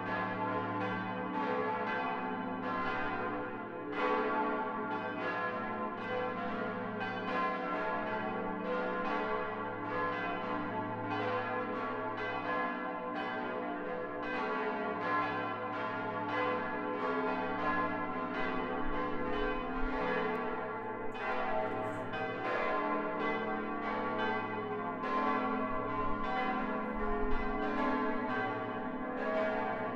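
Several church bells pealing together, a continuous stream of overlapping strikes that ring on into one another: the ringing that calls to the evening prayer.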